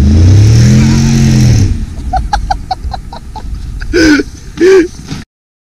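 A vehicle engine revving hard, its pitch climbing for about a second and a half before dropping away. A quick run of short ticks follows, then two short shouts, and the sound cuts off abruptly.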